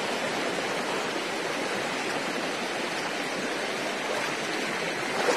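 Steady rush of river water running over rocks.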